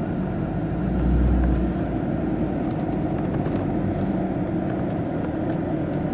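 Vehicle cabin noise while driving: the engine and tyres give a steady low drone, with a deeper rumble swelling for about a second, about a second in.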